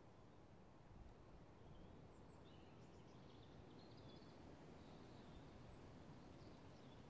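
Near silence: a faint country ambience with distant birds chirping now and then.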